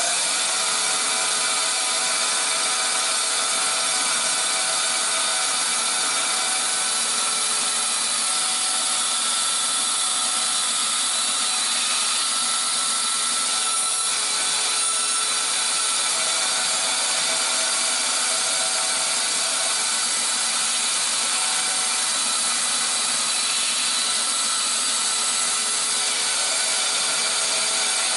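14-inch bandsaw with a 1/4-inch blade running steadily while cutting plywood, a constant motor hum and blade hiss.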